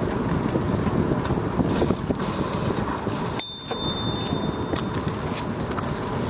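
Wind and road noise rushing over the microphone while riding a bicycle, with a single ring of a bicycle bell about three and a half seconds in, its high tone hanging on for about a second. The bell warns walkers ahead on the path.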